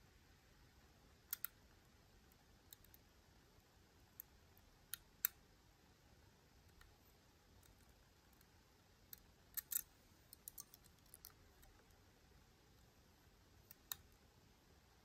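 Faint, scattered metallic clicks of a lock pick working inside a Miwa U9 lock cylinder, with a quick cluster of clicks about ten seconds in, over near silence.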